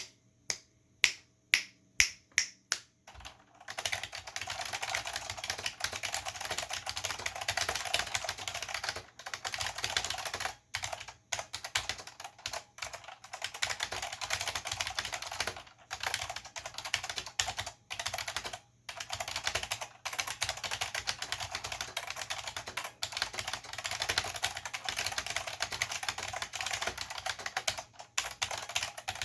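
Chicony KB-5301 keyboard with Chicony buckling spring switches being typed on. It starts with a handful of single, evenly spaced keystrokes, then from about three seconds in turns to fast continuous typing with a few short pauses. The keys bottom out with a hollow, massless sound.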